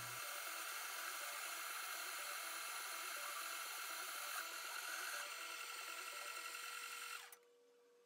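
Shop Fox M1049 benchtop metal lathe running with its chuck spinning: a steady motor-and-spindle hum with a constant whine. It cuts off abruptly near the end as the lathe is stopped.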